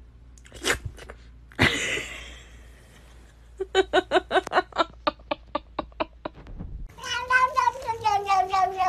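A cat makes a rapid string of short, chirping calls, about five a second, for nearly three seconds. Near the end another cat starts a long, drawn-out meow that falls slightly in pitch. A couple of sharp, noisy sounds come in the first two seconds.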